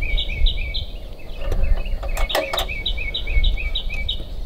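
A songbird singing fast runs of short, repeated two-part chirps, about four a second, pausing briefly after the first second. A few light clicks come about halfway through.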